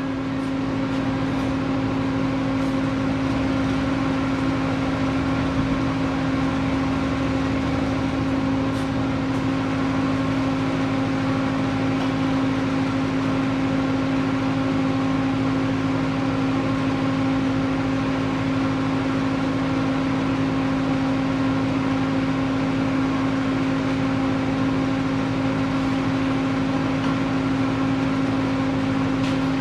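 Welding machine humming steadily with its cooling fan running, one unchanging electrical buzz with a whir of air.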